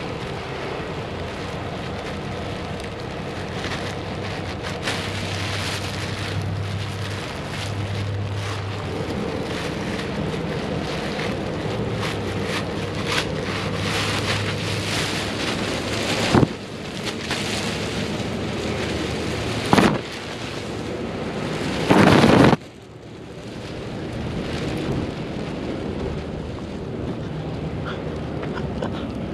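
Clear plastic wrap crinkling and rustling as gloved hands pull and bunch it, over a faint steady low hum. Three sudden loud noises come in the second half, the last and loudest lasting about half a second.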